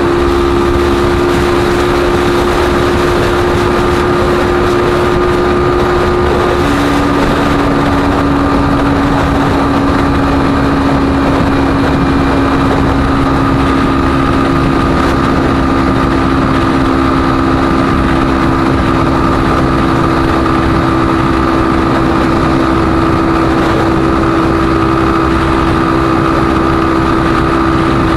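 Lexmoto ZSX-F 125's single-cylinder 125cc engine running steadily at cruising speed, heard from the rider's position over a rush of wind and road noise. Its pitch shifts slightly about six and a half seconds in.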